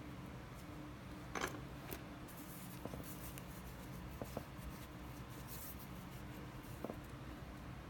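Faint handling noise of fingers rubbing and pinching a nylon paracord lure, with a few soft clicks and taps, the sharpest about a second and a half in, over a steady low hum.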